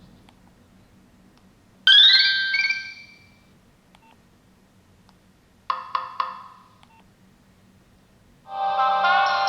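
Nokia 6070 mobile phone playing its polyphonic ringtones one after another: a short jingle with a rising sweep about two seconds in, three quick notes a little before six seconds, then a fuller melody starting near the end.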